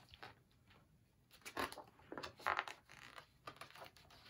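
Pages of a large picture book being turned and handled: short papery rustles and light taps, the two loudest about a second apart in the middle.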